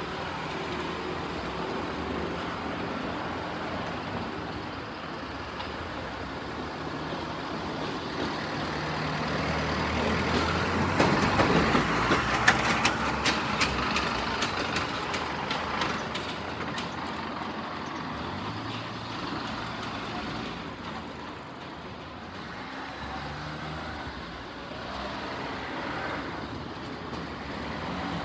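A vehicle passing by: a steady rushing noise that builds to its loudest about eleven seconds in, with a quick run of sharp clicks over the next few seconds, then slowly fades.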